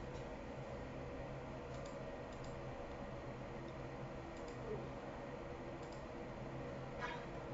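A few faint, scattered computer mouse clicks, one slightly louder near the end, over a steady low hum.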